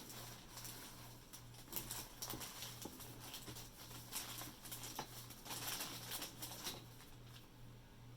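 Faint rustling and light clicks from handling packaging as shark jaws are unwrapped, over a steady low pulsing hum.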